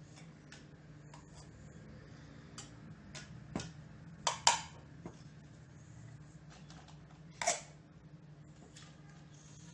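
Plastic toy food and toy dishes being handled on a table: scattered light clacks and taps, with a couple of louder knocks about four and a half seconds in and another about seven and a half seconds in, over a faint steady hum.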